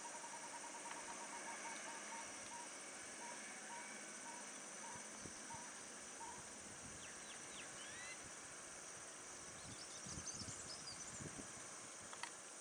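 Steady high-pitched insect chorus, with a faint repeated note that fades out in the first few seconds and a few short bird chirps about seven and ten seconds in.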